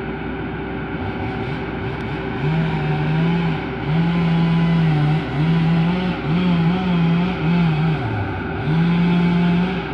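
A two-stroke chainsaw revs hard to full throttle again and again from about two seconds in, its pitch dropping briefly between bursts. Beneath it runs the steady hum of a Caterpillar hydraulic excavator's diesel engine.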